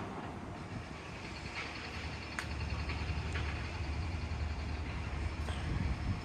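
A heavy vehicle running close by, a deep rumble that swells about a second and a half in and stops near the end, with a faint high tone over it and two sharp clicks.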